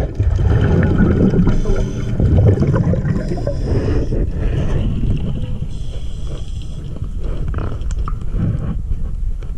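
Muffled underwater rumble and gurgling water heard through a submerged camera, with scattered light scrapes and knocks.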